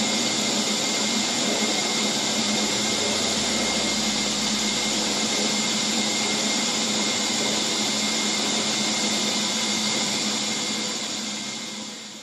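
Milling machine running, its end mill cutting across the end face of an aluminium extrusion profile to mill it flat and square: a steady machining noise with a constant whine. It fades away near the end.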